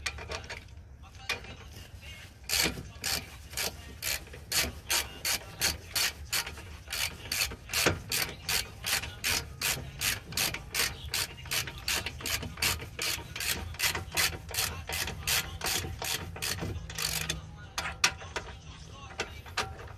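Hand socket ratchet clicking in rapid, evenly spaced strokes, about two to three a second, as it drives the front brake caliper bracket bolts home. It starts about two seconds in and stops a few seconds before the end.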